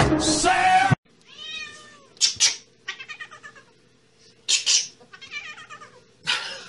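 Music cuts off about a second in. Then a domestic cat meows and yowls several times in short, loud cries while being held up by a person.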